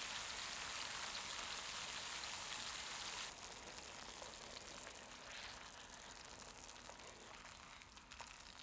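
Teriyaki sauce of mirin, sake and soy simmering around yellowtail fillets in a frying pan, a steady bubbling sizzle with a crackling hiss. It drops noticeably quieter about three seconds in.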